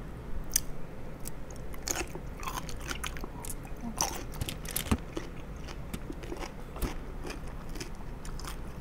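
A person chewing a mouthful of food: scattered short mouth clicks and smacks.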